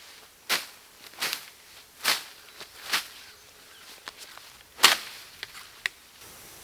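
A series of sharp strikes, about five spaced roughly a second apart, the loudest nearly five seconds in, followed by a couple of lighter clicks.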